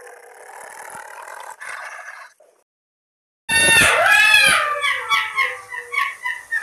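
Wild canids yipping and howling: loud, high cries that rise and fall in arcs and overlap one another, starting abruptly about three and a half seconds in. Before them, a rushing noise for about two seconds that cuts off into a second of silence.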